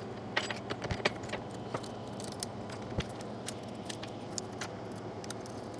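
Steel saw chain clinking and rattling as the loose chain is handled and fitted around a chainsaw bar: a scattered run of small, sharp metal clicks over a steady low hum.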